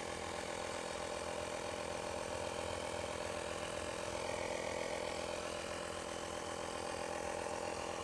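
Bergmann 2-in-1 car vacuum cleaner running as a 12-volt tyre inflator, its compressor humming steadily as it pumps air into a car tyre. It is heard from inside the car's cabin.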